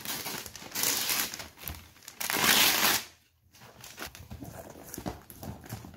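Wrapping paper and tissue paper crinkling and tearing as a present is unwrapped, in two loud rustling bursts about one and two and a half seconds in, then softer rustles and small clicks as the box is handled.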